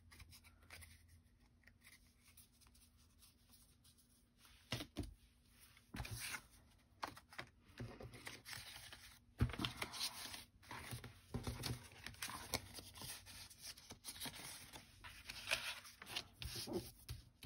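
Cardstock and patterned paper pieces handled and slid about on a cutting mat: irregular paper rustles, slides and light taps, beginning about four and a half seconds in and growing busier after about nine seconds.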